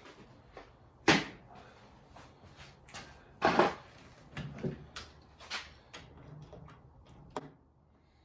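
Workshop handling knocks: a sharp knock about a second in, a louder clunk about three and a half seconds in, then several lighter taps.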